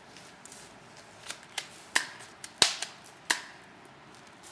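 A quick run of six sharp cracks or pops over about two seconds, starting a little over a second in, the loudest near the middle.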